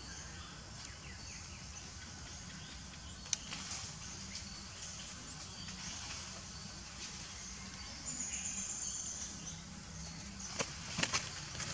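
Outdoor ambience: a steady low background noise with faint scattered bird chirps, a brief high steady tone around the middle, and a few sharp dry crackles near the end.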